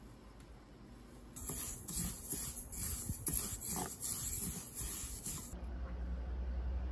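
A spoon stirring sesame seeds in a frying pan: a dense rustling and scraping of seeds against the pan, with quick strokes of the spoon. It stops suddenly about five and a half seconds in, and a low steady hum follows.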